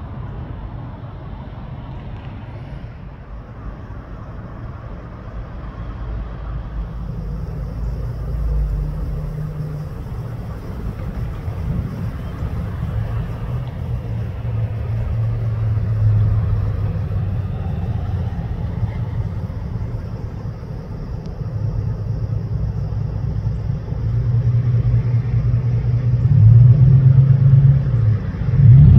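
Road traffic passing on a nearby street: a low engine rumble and tyre noise, growing louder toward the end as a vehicle passes close by.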